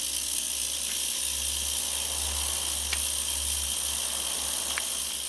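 Ultrasonic cleaner running with fuel injectors in its bath, a steady hiss that is strong in the high pitches, while the injectors are cleaned of carbon and gum deposits.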